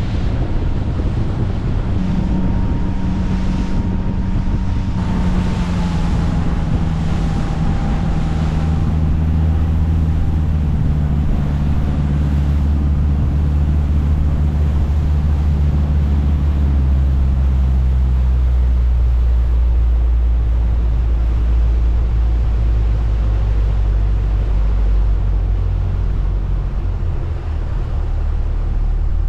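Motor boat's engines throttling back from speed, their note and a high whine falling over several seconds, along with the rush of wind and water. The boat then settles into a steady low engine drone as it slows.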